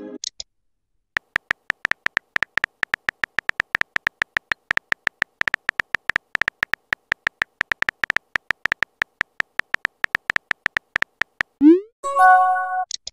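Rapid keyboard-typing click sound effects from a texting-story app, one click per letter as a message is typed out. Near the end, a short rising swoosh and a brief chime of a few tones: the app's message sound.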